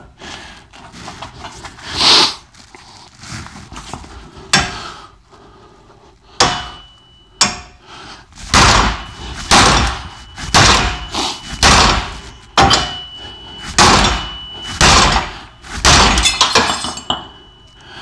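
Sledgehammer blows on the striking wrench of an OTC hub puller, driving a rust-seized CV axle out of a rear wheel hub. A few spaced strikes come first, then a steady run of about one blow a second from about eight seconds in, some leaving a short metallic ring.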